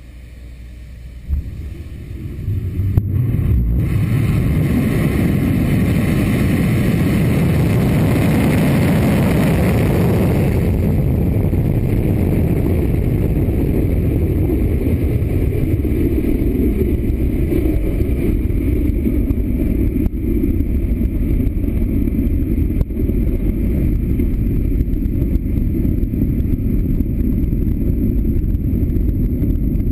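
Delta IV Medium+ (5,4) rocket lifting off, its RS-68 main engine and four solid rocket motors running. The sound builds over the first few seconds, with a sharp crack about a second in, to a loud, steady, deep roar that holds.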